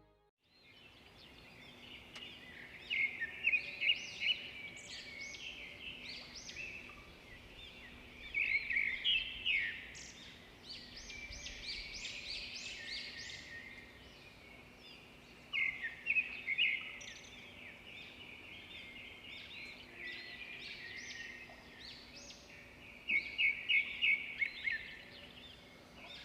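Birds chirping and singing, several calls overlapping, with a few louder runs of rapid repeated notes.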